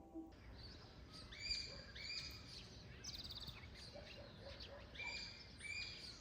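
Small birds chirping, with repeated short calls and a quick rapid trill about three seconds in, over faint background hiss.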